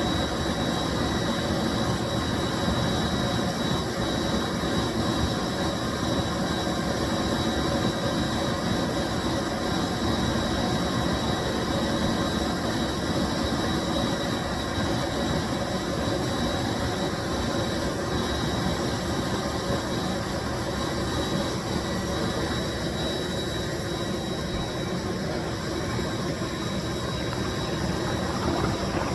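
1995 Bissell SC deep cleaning machine running steadily: an even rushing noise with a thin high whine over it.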